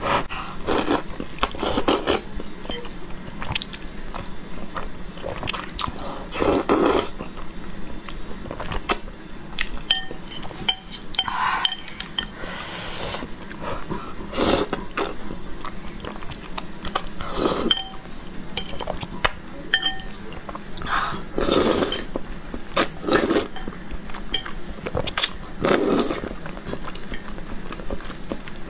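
Repeated slurping of soupy noodles, with chewing, and chopsticks clinking against a ceramic bowl now and then.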